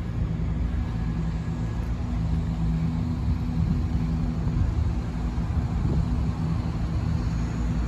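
Engine idling steadily: a low, even hum that holds one pitch throughout.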